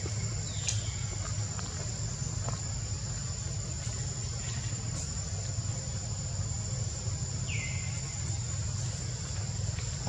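Steady high-pitched insect drone over a low steady rumble, with one short falling chirp about three quarters of the way through.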